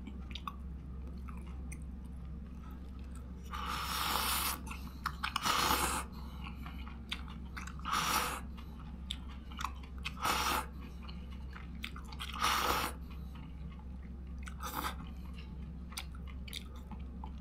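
A person chewing and biting food close to the microphone, with about six louder short crunching bursts spread through and small mouth clicks between, over a steady low hum.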